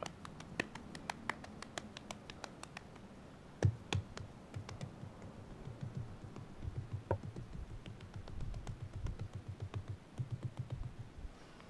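Hands pressing and patting a lump of unprocessed red clay onto a mud fireplace's chimney: a run of quick, soft, low pats, preceded by scattered sharp clicks and a single thump about four seconds in.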